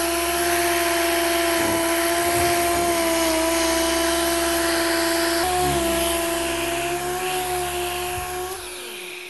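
Random orbital sander with dust extraction running steadily, its abrasive disc sanding the paint of a plastic car bumper down around a pushed-out dent to key it for filler. The machine's steady hum and hiss gets quieter in the last couple of seconds.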